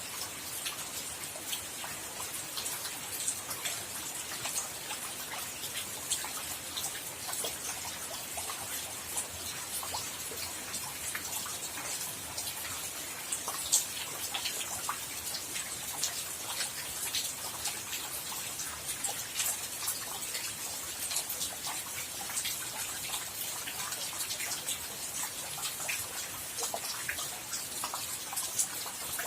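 Steady rain falling, with many separate drops heard striking nearby, one notably louder about halfway through.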